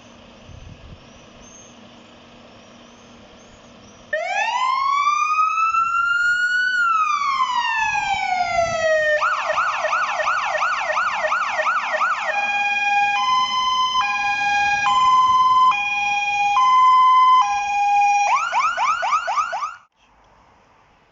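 Fire engine's electronic siren switched on about four seconds in: one slow rising and falling wail, then a fast yelp, then an alternating two-tone hi-lo, a short yelp again, and it cuts off near the end.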